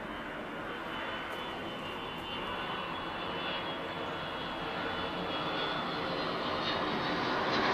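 Jet aircraft passing overhead: a steady rushing drone that grows slowly louder, with a faint high whine over it.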